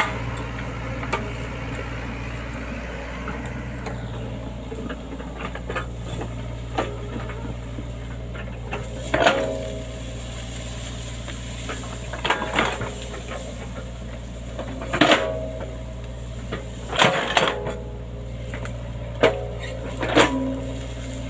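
Excavator diesel engine running steadily, with a series of sharp metallic clanks that ring briefly as the machine works, most of them in the second half.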